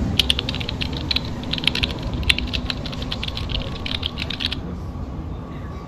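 Rapid, irregular keyboard-typing clicks that stop suddenly about four and a half seconds in, over a low steady rumble.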